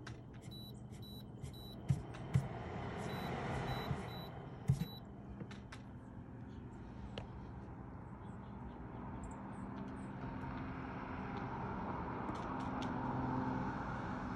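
Cars passing on the street: one swells and fades about three to four seconds in, and another builds steadily toward the end. A few sharp knocks come in the first five seconds.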